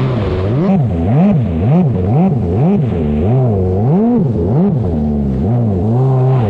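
Stand-up jet ski engine running hard, its pitch rising and falling about twice a second as it revs up and down, over a hiss of spray.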